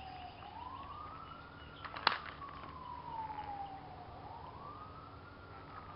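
A faint siren wailing, its pitch sliding slowly down and then rising again in a repeating cycle of about four seconds. A single sharp click sounds about two seconds in.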